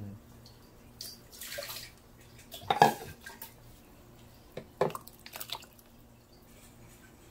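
A short splash of water poured into a plastic blender jar. Then several sharp knocks and clunks as the jar is tipped against a ceramic bowl and thin green salsa is poured out. The loudest knock comes about three seconds in.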